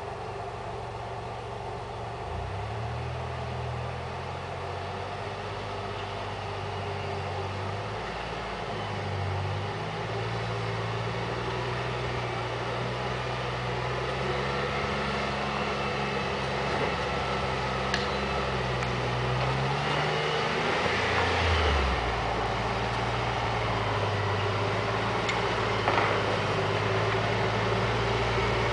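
Lifted 4x4 SUV's engine running at low revs as it crawls over boulders, its pitch shifting up and down with the throttle and growing louder as it approaches. There are a couple of sharp clicks, one near the end.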